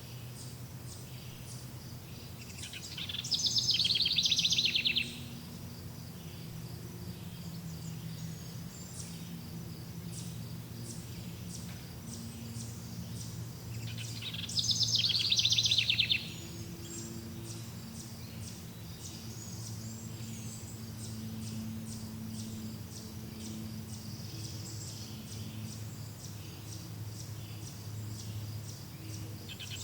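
Birds chirping throughout over a low steady hum. Twice, about eleven seconds apart, a loud, rapid, high trill lasts about two seconds.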